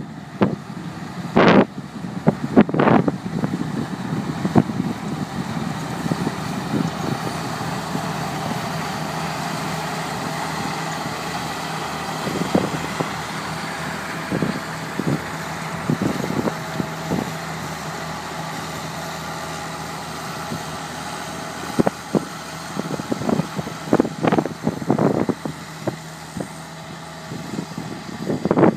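Massey Ferguson tractor engine running steadily while ploughing. Buffets of wind noise on the microphone break in near the start and again near the end.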